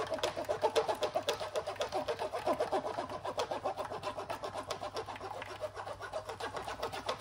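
A spoon scraping and stirring wet blended fruit pulp in a fine-mesh strainer in quick, even strokes, several a second, pressing the juice through.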